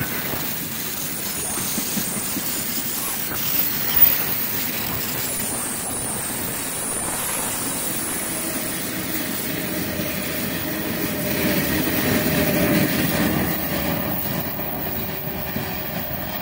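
Loaded freight train of open gondola wagons rolling past close by: a steady rolling noise of steel wheels on rails, with one sharp knock about four seconds in. In the second half a steady hum joins in, growing louder and then easing off.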